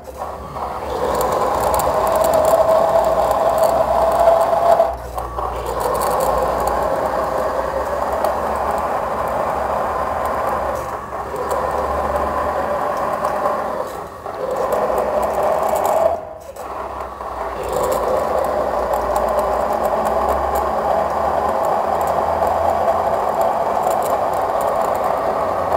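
Timken-type friction tester running: its motor-driven spinning steel ring rubs under load against a steel test block in engine oil, giving a steady grinding, scraping whine that dips briefly about four times as the load on the lever arm is worked up with a torque wrench.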